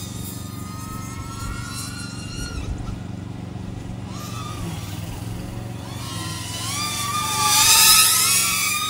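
DJI Avata FPV drone, rebuilt with the Axisflying 3.5-inch motors and propellers, whining in flight. Its pitch rises and falls with the throttle, and it grows loudest about seven to eight seconds in.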